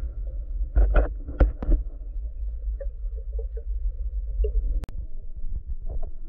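Muffled underwater sound: a steady low rumble with a few knocks about one to two seconds in, scattered faint clicks, and one sharp click near the five-second mark.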